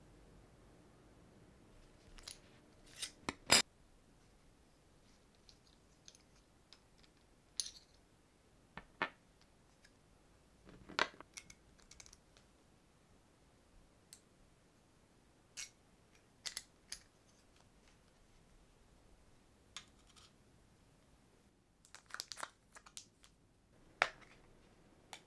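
Scattered sharp clicks and taps of a plastic-handled OLFA leathercraft knife being handled as its replaceable flat blade is taken out and fitted, with clicks from a small plastic replacement-blade case near the end.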